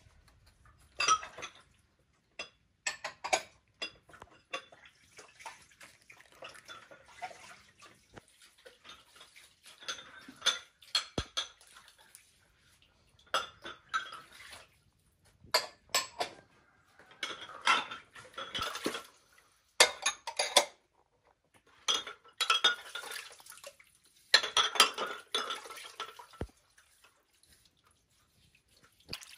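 Hard objects clinking and clattering as they are handled, in irregular bursts every second or two with short pauses between.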